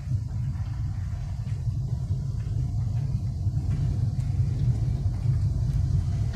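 Steady low rumble of a car driving slowly over a rough street, heard from inside the cabin: tyre and road noise with the engine underneath.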